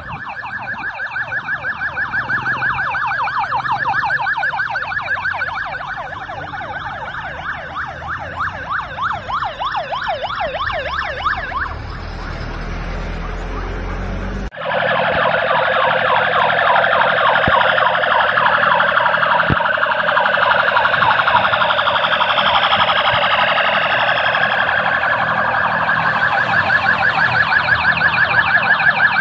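Police vehicle sirens in a fast yelp, rising and falling about three times a second, several overlapping as a convoy of police trucks and motorcycles passes. About halfway through the sound cuts off suddenly and another, louder set of sirens follows.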